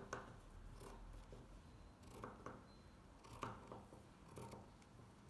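Scissors cutting through thin lining fabric, trimming off a frayed edge, in a few faint, separate snips.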